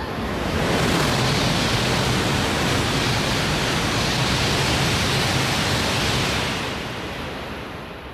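Shinkansen bullet train passing through the station at high speed without stopping: a loud rush of air and wheels that builds within the first second, holds steady for about five seconds as the train sweeps by, then fades away.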